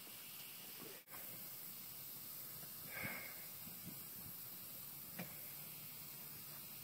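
Faint, steady outdoor background hiss, with a brief faint rustle about three seconds in and a small click about five seconds in.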